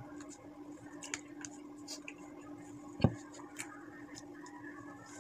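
Eating sounds: a metal spoon clicking and scraping against a dish, with one louder knock about three seconds in, over a steady low hum.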